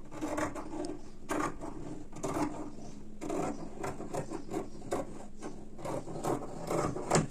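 Scissors cutting through cotton lining fabric: a run of irregular snips and rasping strokes, with the cloth rustling.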